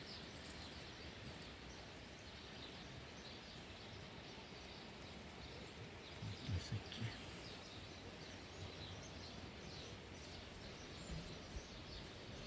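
Faint, steady outdoor background noise of a rural garden, with occasional faint bird chirps and a couple of brief soft low sounds a little past the middle.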